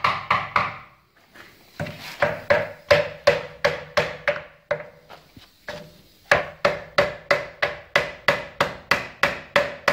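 Rapid hammer blows on the cylinder head of a VAZ-2106 engine, about four a second in runs with short pauses, each blow ringing with a short metallic tone. The head is being knocked loose where the head gasket has stuck it to the block.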